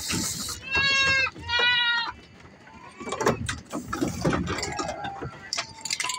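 Goats bleating twice in quick succession, two steady calls of about half a second each, followed by irregular clicks and knocks of hooves shuffling on a slatted wooden floor. A brief hiss opens the sound.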